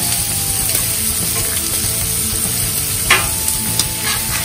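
Shrimp and scallops sizzling steadily on a hot Blackstone steel flat-top griddle. About three seconds in there is a sharp clack, then a couple of lighter ticks, from a metal spatula on the griddle top.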